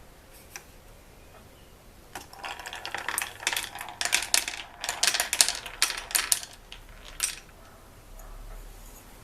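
Marbles clicking and clattering through a marble run machine: a quick, irregular run of sharp clicks that starts about two seconds in, is densest in the middle and ends with a last single click.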